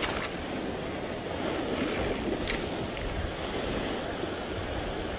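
Sea surf washing against a rocky shore, with wind rumbling on the microphone.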